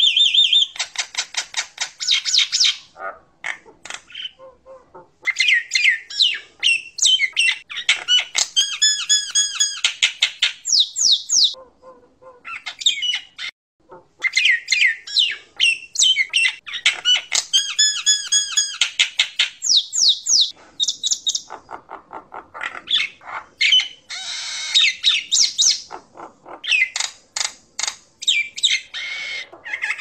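Common myna singing: long, varied runs of rapid clicking notes, harsh squawks and repeated whistled trills, broken by a few short pauses.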